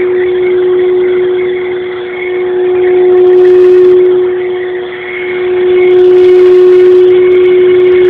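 Hair dryer running steadily: a strong motor hum over rushing air, swelling louder and fading a few times.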